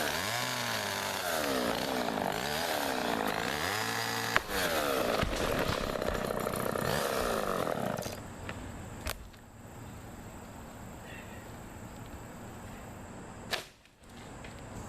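Gas chainsaw running, its engine pitch repeatedly dipping and climbing back up as it works through the dead oak trunk, for about eight seconds before it stops. A single sharp knock follows near the end.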